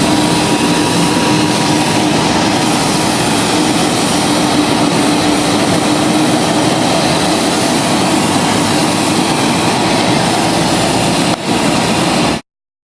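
Jet airliner cabin noise: a loud, steady rush of engines and airflow heard from inside the cabin, with a faint hum in the first half, cutting off suddenly near the end.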